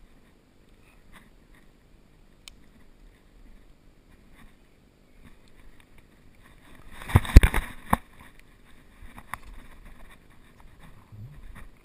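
Footsteps and rustling through leaf litter and brush as a person moves quickly through woods, with a burst of loud knocks and deep thumps about seven seconds in while scrambling down a steep creek bank.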